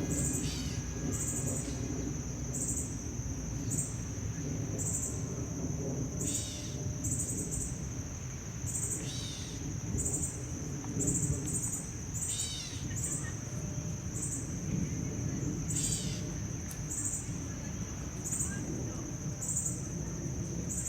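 A bird calling five times, each call a short run of falling notes, over a steady high-pitched drone with a regular pulsing chirp about every three-quarters of a second and a low background rumble.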